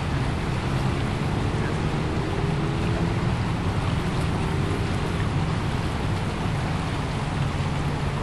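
Steady rush of fast-flowing river water, with a constant low rumble under it.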